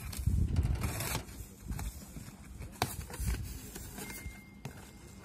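Cardboard box flaps being pulled open and handled, a rustling scrape of cardboard, loudest in the first second, with a sharp tap near the three-second mark.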